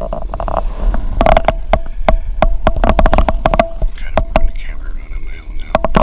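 Irregular crackling and clicking from a camera-mounted microphone and its cord being jostled. Under it runs a steady, high insect trill.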